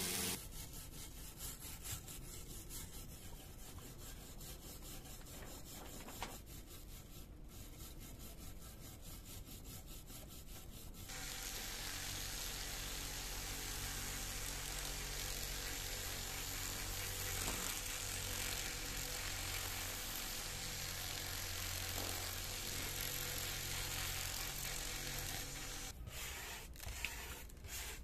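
Small electric rotary tool with a wire brush wheel scrubbing rust off an old steel bubble level, a steady scratching over a motor hum that becomes louder partway through. Near the end, a few separate scraping strokes of a hand wire brush.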